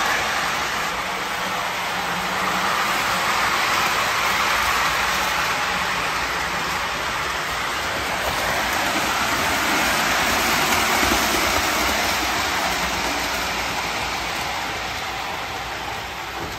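Lionel O gauge Milwaukee Road GP7 diesel pulling passenger cars around the layout: a steady running rumble and whir of its motor and wheels on the three-rail track.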